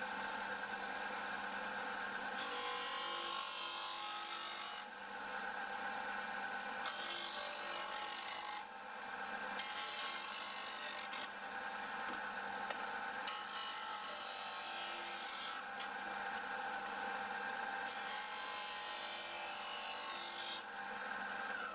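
Benchtop belt and disc sander running steadily with its motor hum while the corners of a plywood panel are rounded on it. The hiss of abrasive grinding the wood comes and goes about five times, each contact lasting one to three seconds.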